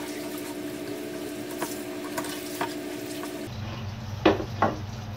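Kitchen knife cutting salmon on a wooden chopping board, with a few short taps of the blade on the board and two sharper knocks near the end, over a steady hiss and faint hum.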